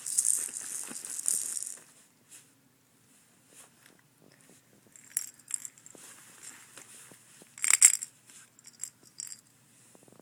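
A toy rattle being shaken: a steady run of shaking for the first two seconds, then scattered light rattles and clicks, with one louder shake a little before the eight-second mark.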